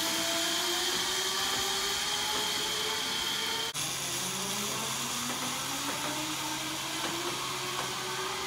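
Zipline trolley pulleys running along the steel cable: a steady whirring hiss with a whine that rises slowly in pitch as the rider gathers speed. A little before halfway it breaks off suddenly and starts again lower, rising once more.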